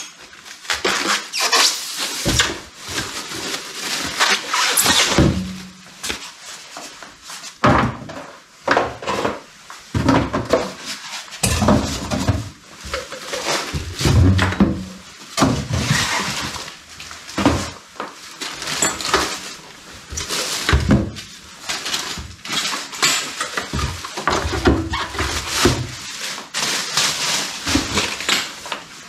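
A bench grinder being unpacked by hand: polystyrene packing pieces pulled off, plastic wrapping rustling and crackling, and irregular knocks and scrapes as the heavy grinder and its cardboard box are moved about on the worktop.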